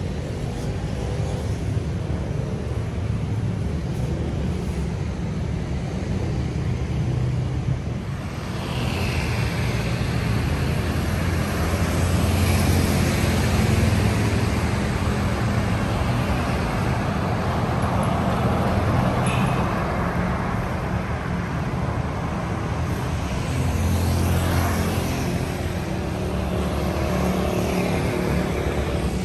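City road traffic: cars and motor scooters passing on a wide street, a steady low rumble that swells twice as nearer vehicles go by.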